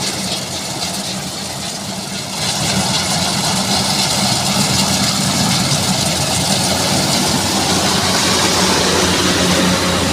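Rice combine harvester's diesel engine running steadily in the paddy. It grows louder about two seconds in, with a rushing hiss added on top.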